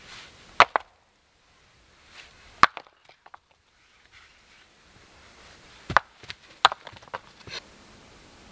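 Sharp, hard knocks of objects being handled and set down: a quick double knock about half a second in, a single one a couple of seconds later, and a cluster of four or five close together in the second half.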